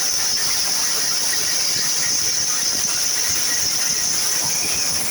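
CNC plasma cutter torch cutting: a steady, loud hiss of the plasma arc and air with a high-pitched whine, easing slightly near the end.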